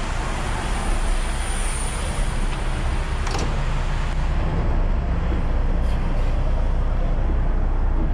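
Heavy truck's diesel engine running steadily, close by, with a single sharp click about three seconds in.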